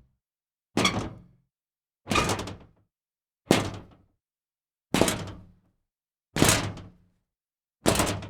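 Scrap metal being kicked: six separate metallic hits, about one every second and a half, each dying away quickly with silence between.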